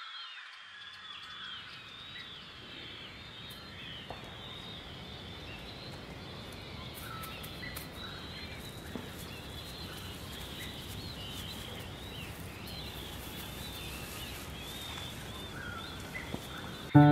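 Many birds calling, with short chirps and whistles throughout over a steady low background hiss of outdoor ambience.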